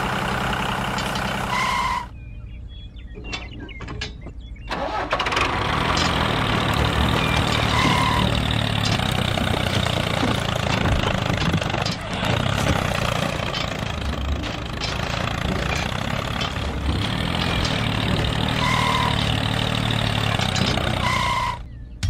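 Tractor engine running steadily. It drops away about two seconds in and picks up again about five seconds in, running on with a rough, dense rattle until just before the end.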